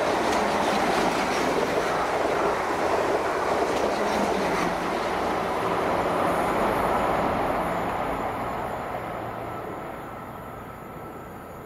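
Passenger train running on the main line through the station, a loud steady rumble of wheels on rails that fades away over the last few seconds as it recedes.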